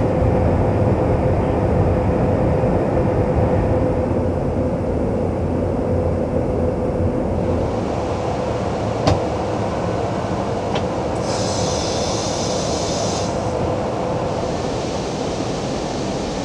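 Steady in-flight rumble of airflow and engines inside a KC-135 Stratotanker, with a faint steady hum under it. A single sharp click comes about nine seconds in, and a brief high hiss from about eleven to thirteen seconds.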